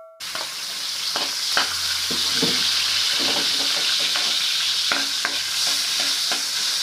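Chopped ginger sizzling in hot cooking oil in a pan, with a metal spatula scraping and tapping against the pan as it is stirred.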